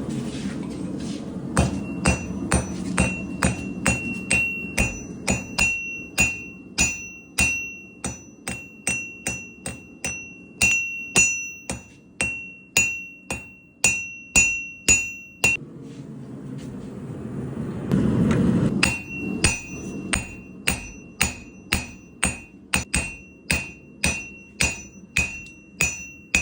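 Hand hammer forging high-carbon Damascus steel on an anvil, about two blows a second, each blow ringing with a high clear tone. The hammering stops for about three seconds in the middle while a low rushing noise swells, then starts again at the same pace.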